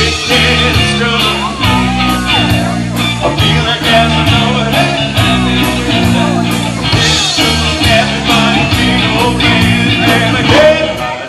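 Live band playing a slow rockabilly number: electric guitars, bass and drum kit keeping a steady beat, with a man singing.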